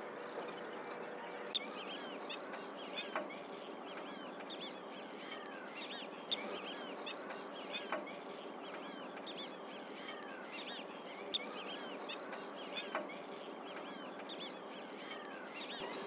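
Many birds calling at once: a dense, unbroken chorus of short hooked chirps over a steady hiss, with a few sharp clicks.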